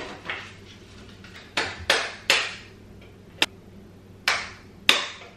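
Objects being picked up and set down on a white bookshelf's shelves: about six sharp knocks and clacks at irregular intervals, starting about a second and a half in.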